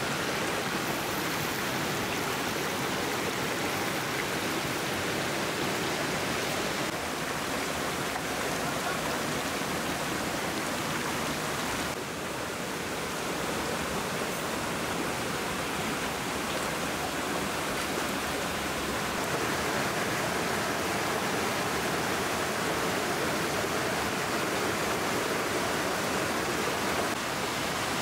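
Steady rushing of a fast-flowing stream over rocks, with a brief slight dip near the middle.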